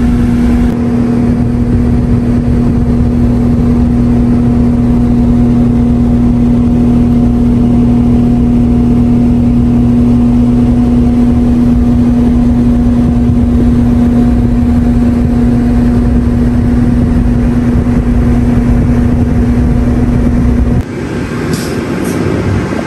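Idling transit bus engine: a loud, steady hum with a constant tone that cuts off suddenly near the end.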